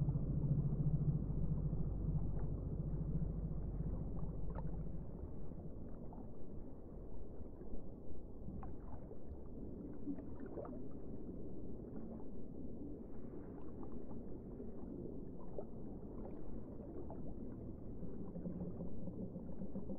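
Muffled underwater sound as picked up through a camera underwater, all of it dull and low. A steady low drone fills roughly the first five seconds, then gives way to a watery wash with scattered small clicks and pops.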